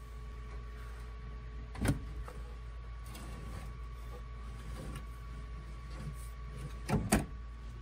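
A Garmin GNS480 avionics unit is slid out of its metal panel rack: a sliding rub of the metal case over a steady low hum, with a sharp knock about two seconds in and a double knock near the end.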